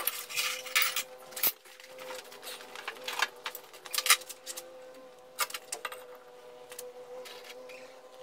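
Scattered light metallic clinks and clicks of small steel target pieces and an adjustable wrench being picked up and set down on a steel workbench and bench vise, over a faint steady hum.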